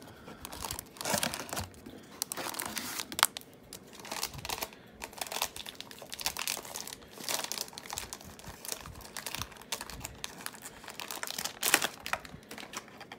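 Heroclix foil booster pack crinkling and crackling in the hands as it is torn open, in a steady run of irregular sharp crackles.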